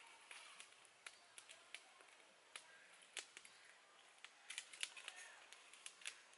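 Small wood fire crackling under a covered cooking pot: faint, irregular sharp snaps, thickest about four and a half to five seconds in.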